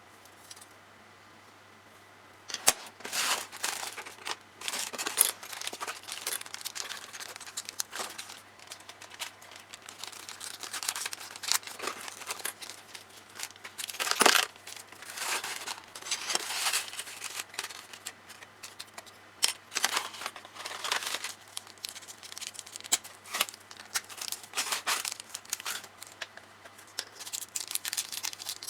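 Plastic packaging of a Tamiya Mini 4WD kit being handled, torn open and crinkled by hand, in irregular bursts with a few sharper snaps.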